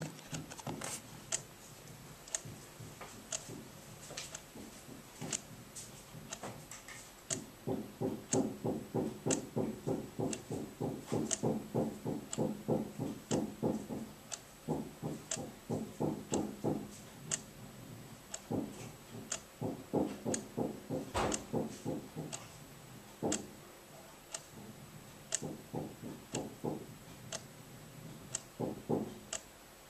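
Dull, muffled hammering from a neighbouring flat, in long runs of quick blows about four a second with pauses between runs, and one louder bang about two-thirds through. An alarm clock ticks faintly once a second underneath.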